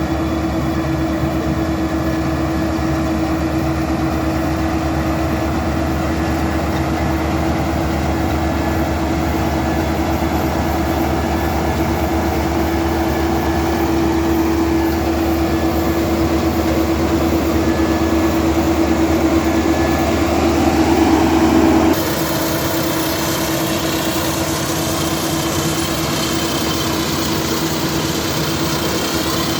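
Half-feed combine harvester running steadily, its engine giving a continuous drone with a strong steady hum. The sound swells a little, then changes abruptly about two-thirds of the way through, with much less low rumble after.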